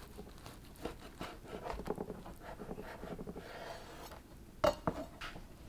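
A knife sawing through a soft burger bun and shredded beef on a cutting board: a run of soft, irregular scraping and crackling strokes, then two sharp taps about a second before the end.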